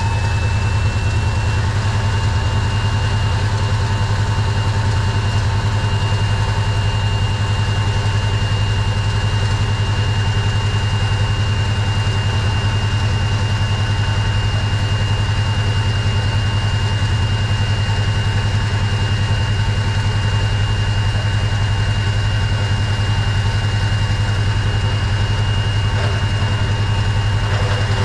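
Warn ProVantage electric winch running steadily, spooling in new synthetic winch rope, with a steady high whine over a low hum.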